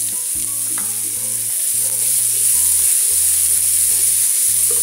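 Chopped onion and garlic sizzling steadily in hot bacon fat in a pan, stirred with a spatula.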